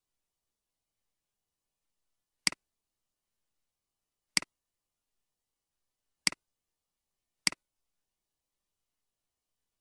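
Four computer mouse clicks, the first three about two seconds apart and the last one sooner, with silence between them.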